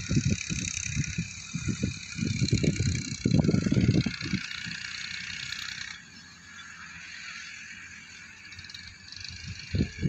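Farm tractors running under load as they work a field, with a steady mechanical drone. Irregular heavy low rumbling surges come in the first four seconds or so. After about six seconds the sound drops to a quieter, steadier drone.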